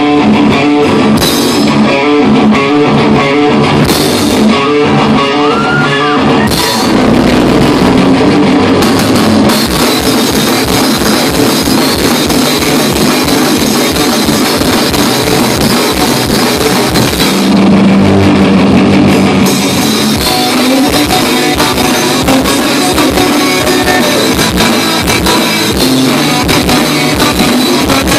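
Rock band playing live: electric guitar chords ring out, then from about nine seconds in the full band comes in hard with guitars and a fast, steady drum kit beat.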